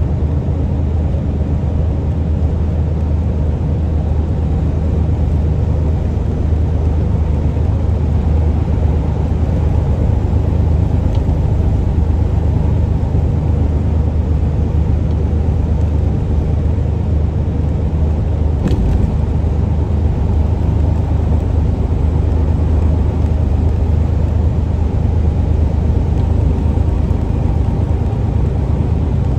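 Steady low drone of a semi truck's diesel engine and tyre noise heard from inside the cab while cruising at freeway speed, with a single click about two-thirds of the way through.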